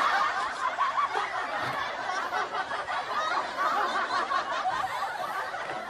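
A dense chorus of night-calling animals: many small chirping calls overlapping into a steady chatter.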